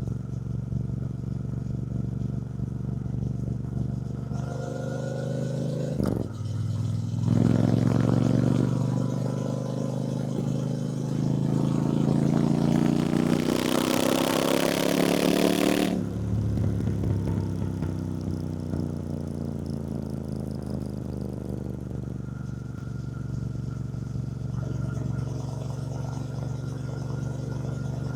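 Triumph Bonneville T120's 1200 cc parallel-twin engine riding along. It runs steadily, breaks briefly about six seconds in, then climbs in pitch for about ten seconds with a rush of hiss near the top. It drops off suddenly, then falls slowly in pitch and settles back to a steady run.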